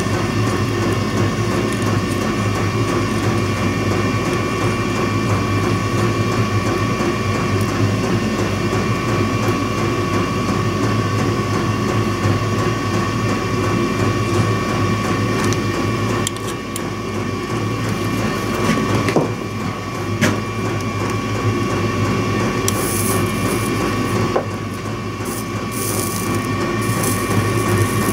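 A steady electrical buzzing hum, like a machine or transformer running. It dips briefly twice in the second half, with a couple of light clicks and a spell of high hiss near the end.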